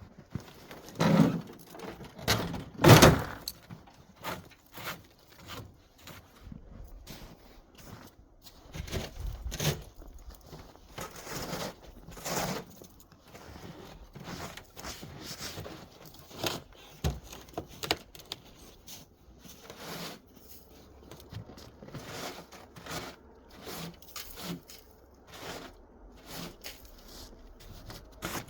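Irregular metal clunks, scrapes and rattles of hands working on an old snowmobile, with two louder knocks in the first three seconds; no engine running.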